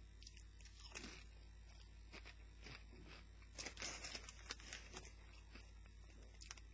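Faint crunching of a Doritos tortilla chip being chewed: irregular crisp cracks, most of them about halfway through.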